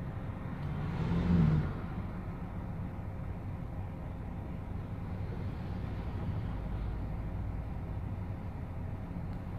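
Low steady rumble of a car heard from inside its cabin, with a brief louder swell about a second in.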